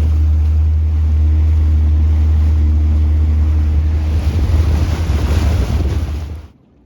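Motorboat running through big waves: a steady engine drone under heavy wind rumble on the microphone and rushing water, with more splashing about two-thirds of the way in. It cuts off suddenly near the end.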